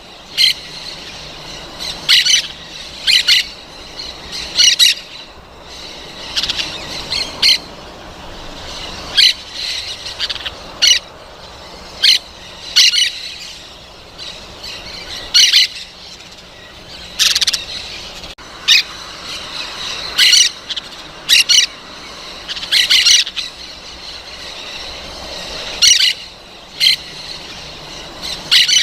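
Parrots squawking: short, harsh calls repeated every second or two, sometimes in quick pairs, over a steady background noise.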